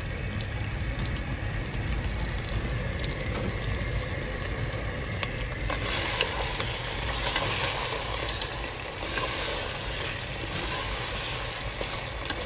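Sambal chilli paste sizzling in a pot with pieces of crab. The sizzle grows louder about six seconds in, and a spatula stirs the crab through the sambal near the end.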